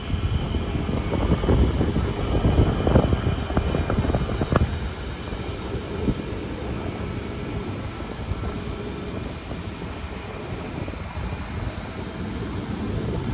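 Alfa Pendular electric tilting train running past, a low rumble with a few sharp wheel clicks, loudest in the first five seconds, then settling to a steadier, quieter running noise.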